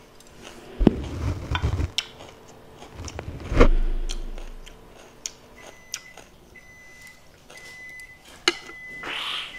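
Chopsticks clicking against plates and bowls as food is picked up, with a few sharp knocks; the two heaviest, about one and three and a half seconds in, land as dull thumps.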